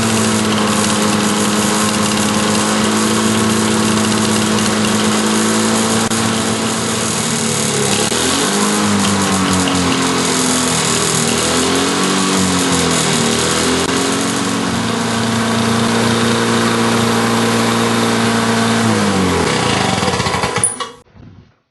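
Lawn-Boy two-stroke mower engine running steadily, its speed dipping and recovering a few times in the middle: a mild hunting after the carburetor clean-out. Near the end its speed falls and the engine is shut off, stopping abruptly.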